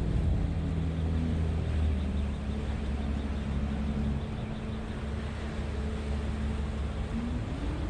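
A boat's engine running steadily with a low rumble and hum, its pitch rising slightly near the end.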